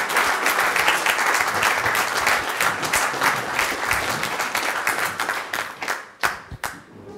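Audience applauding a welcome, a dense patter of many hands that thins out near the end to a few last separate claps.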